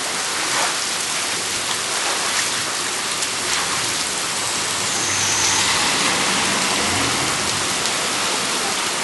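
Heavy monsoon thunderstorm rain pouring down steadily, a dense even hiss of rain hitting the ground and standing floodwater.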